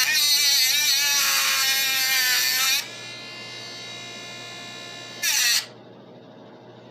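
Cordless metal-cutting saw cutting through a metal part of a BB gun: its motor whine wavers in pitch under load for nearly three seconds, then runs quieter and steadier. A short loud burst comes a little after five seconds, and then the saw stops.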